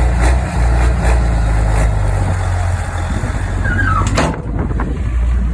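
Heavy engine running steadily at a low hum, with wind buffeting the microphone; about four seconds in there is a brief high squeak, then a sharp knock.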